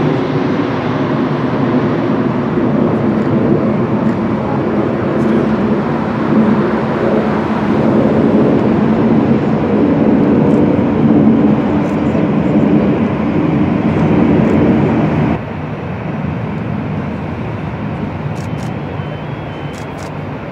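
McDonnell Douglas MD-11's three jet engines heard from below as the freighter climbs out after takeoff: a loud, steady jet rumble with a low drone in it. The level drops suddenly about fifteen seconds in and the sound carries on quieter as the aircraft recedes.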